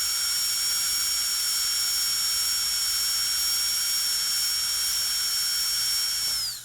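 Dental drill running with a steady high-pitched whine over a hiss, then spinning down with falling pitch and fading out at the very end.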